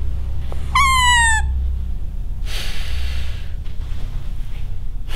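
A short, loud, high-pitched squawk, falling slightly in pitch, about a second in, followed by a breathy gasp-like hiss, over a steady low hum.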